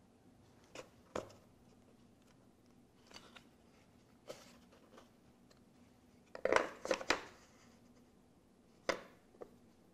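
Scattered light wooden clicks and knocks as thin wooden divider strips are handled and set into a small wooden drawer, with a steel square laid in among them. The loudest knocks come in a quick cluster about six and a half seconds in, with another single knock near the end.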